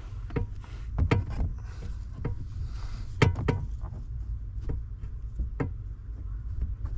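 Scattered clicks and knocks of metal and plastic parts being handled as the electric power-steering assist motor is slid back onto the steering column, the loudest knock about three seconds in, over a steady low hum.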